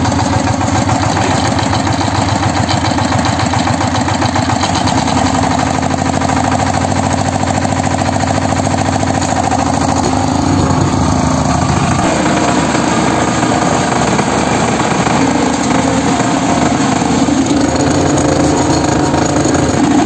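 Kirloskar MegaT 15 power tiller's single-cylinder diesel engine running steadily while its rotary tines till the soil. The engine note shifts about five seconds in and again near twelve seconds.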